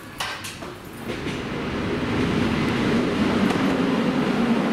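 TransPennine Express Class 185 diesel multiple unit approaching and passing close by. Its diesel engines and wheels on the rails grow louder from about a second in to a steady, low drone. A few sharp clicks come just before the build-up.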